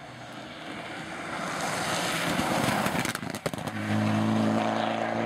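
Mitsubishi Lancer Evo rally car with a turbocharged four-cylinder engine, approaching at speed with its engine and tyre noise growing steadily louder. A few sharp pops come as it passes, then a steady engine note holds as it drives away.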